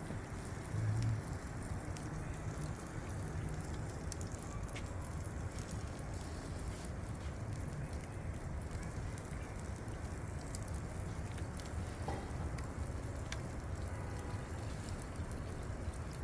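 Fish grilling over charcoal: a steady sizzle with scattered faint crackles from the coals, over a steady low rumble.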